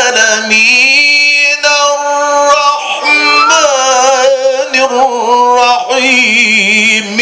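A man's voice reciting the Quran in the ornamented mujawwad style: long held notes that waver and glide in melismatic ornaments, sung without a break.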